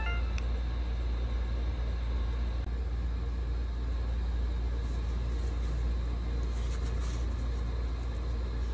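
Steady low background rumble throughout. Right at the start, a short electronic chime of a few stepped tones, the Insta360 X3 camera's power-off sound. Light handling ticks follow later as the camera is moved about.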